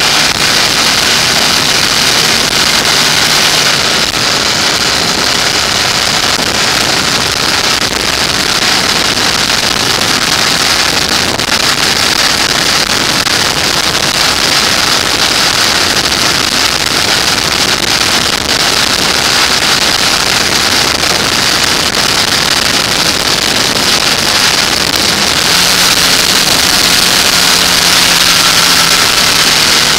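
Motorcycle riding at a steady speed: the engine's hum under a steady rush of wind over the microphone. The engine note comes through more plainly in the last few seconds.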